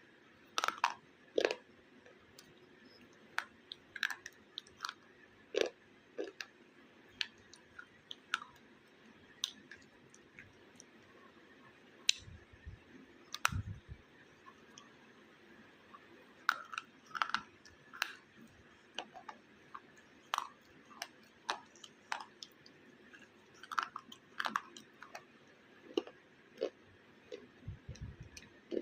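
Baked clay pot pieces being bitten and chewed close to the microphone: scattered sharp, brittle crunches and cracks with short pauses between them. Two or three brief low thumps come around the middle and near the end.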